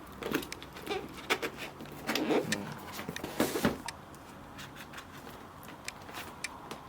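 Handling noises from the gimbal and its parts being unpacked and fitted: a run of clicks, taps and light knocks. These are busiest in the first few seconds and sparser after that.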